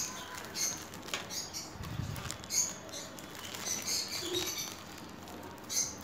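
Plastic packaging and tubing being handled by hand, giving scattered light rustles and small clicks, with a louder crinkle near the end.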